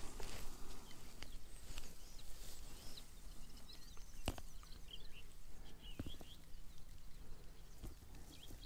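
Faint bird chirps over a low steady rumble, with a few sharp clicks and rustles of footsteps through long grass.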